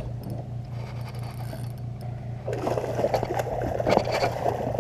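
Hooked catfish splashing and thrashing in the water as it is drawn in, starting about halfway through with irregular sloshes and slaps, over a steady low motor hum.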